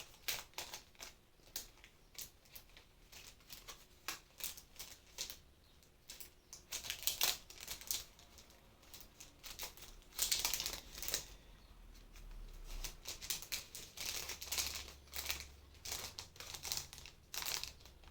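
Plastic packaging crinkling and clicking as it is handled, in irregular short crackles that come thicker in a few bursts.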